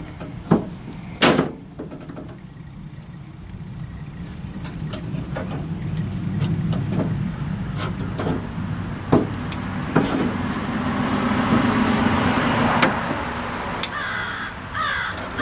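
Pickup truck door window glass and its tracks being worked by hand after the tracks were greased: scattered knocks and clicks, one sharp knock about a second in. A rough rubbing and rumbling noise builds over the middle of the stretch.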